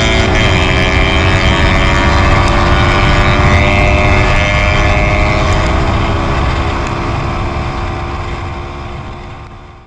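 Modified Honda Winner 150 single-cylinder motorcycle engine running on the road, heard from the rider's seat with wind rushing past; the engine note eases slightly down in pitch, and the sound fades away over the last few seconds.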